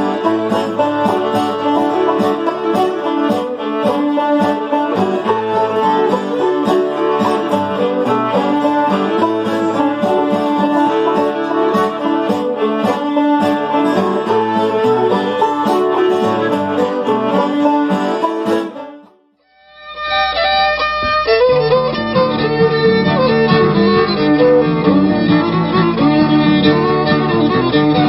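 Old-time string trio of fiddle, open-back banjo and acoustic guitar playing a fiddle tune together. About 19 seconds in the playing fades out, and an old, thin-sounding archival recording of fiddle playing the same tune starts up.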